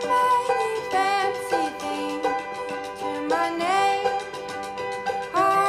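Background music: a melody of pitched notes, several of them sliding up or down into the next.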